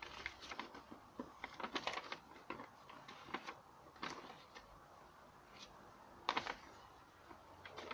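Folded paper instruction leaflet rustling and crinkling as it is unfolded and turned over by hand, in scattered irregular crackles.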